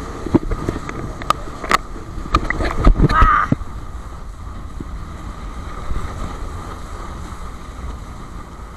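Wind buffeting the microphone and water rushing past a banana boat towed at speed, a steady rush throughout. Several sharp knocks in the first three or four seconds, the loudest about three seconds in, as the camera is handled and turned.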